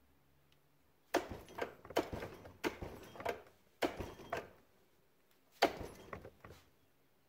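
Vise-grip pliers clanking and scraping on a steel connecting rod as they are jerked hard to pull the bolt sleeve out, in about four bursts of sharp metal clicks and rattles.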